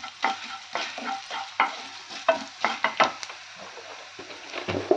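A spatula stirring and scraping coriander seeds frying in a little oil in a pan: about a dozen irregular scrapes and knocks against the pan over a steady frying hiss.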